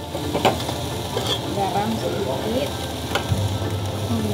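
Chopped green vegetables sizzling as they are stir-fried in a wok, with a spatula scraping through them and knocking sharply against the pan a few times.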